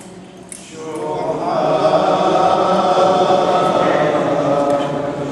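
Men's voices singing a Chaldean liturgical chant, coming in about a second in and then holding on at a steady level.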